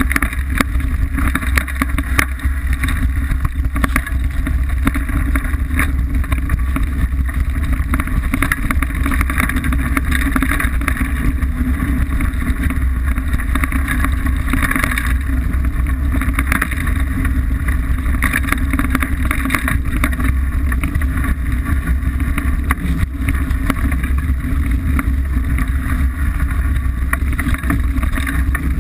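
Liteville 301 mountain bike descending a rough singletrail, heard through a camera mounted on the bike. There is a steady, loud low rumble of tyres and wind, and constant rattling and clattering from the bike over the rough ground.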